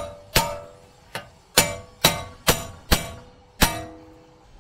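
Hammer blows on a half-inch steel plate, driving a front wheel bearing inner seal into a steering knuckle through the old bearing's outer race. There are about eight sharp metallic strikes roughly half a second apart, each ringing briefly. The last one rings on for nearly a second.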